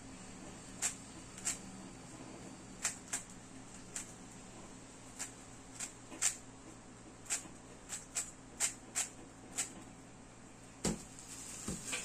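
Plastic GAN 3x3 speed cube being turned by hand: irregular sharp clicks as its layers snap around, about fifteen in all. Near the end a louder knock as the cube is set down on the table.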